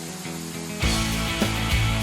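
Background music: held tones, then just under a second in it swells louder and a steady beat comes in.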